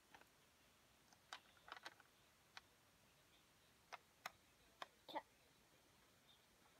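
Faint, scattered clicks and light taps, about seven spread through a few seconds, from plastic Lego pieces being handled on a Lego baseplate.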